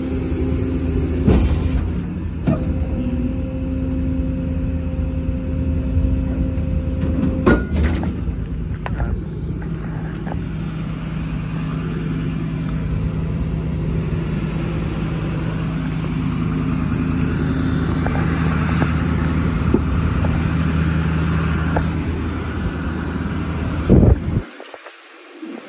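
Chevrolet Silverado 5500HD's 6.6-litre Duramax V8 turbo-diesel idling steadily, with a few light knocks. Near the end there is a loud knock, and then the engine sound suddenly becomes much quieter.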